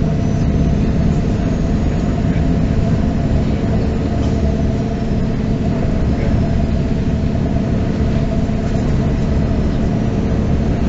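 Interior sound of a MAN NG 313 articulated bus running, its diesel engine giving a steady low drone with a few faint tones above it.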